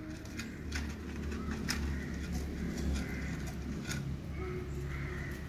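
Labrador puppy licking and nosing an empty plastic bowl on gravel, with scattered small clicks and scrapes, while birds call in the background.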